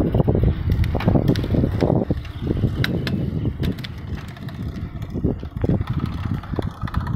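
Bicycle ridden along a paved path: rumble of tyres and frame, with scattered light clicks and rattles.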